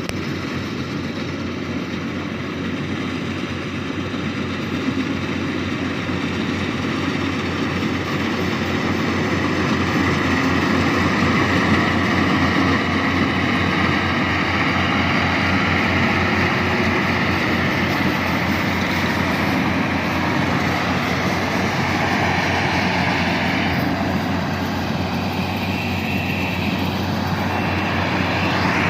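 Yanmar AW70V rice combine harvester running steadily: its diesel engine and harvesting machinery make a continuous mechanical drone that grows slightly louder over the first ten seconds. Near the end, a higher whine in the mix dips in pitch and rises again.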